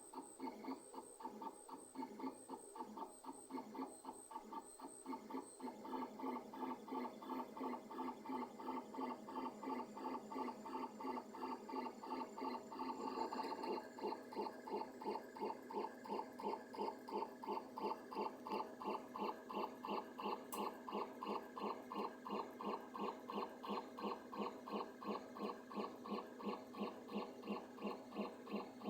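Creality CR10 S5 3D printer printing PETG: its stepper motors whine in a rapid, even back-and-forth rhythm of about three pulses a second as the print head lays down a layer, over the steady hum of the cooling fan. About 13 seconds in, the pattern of the moves shifts and the tone settles lower.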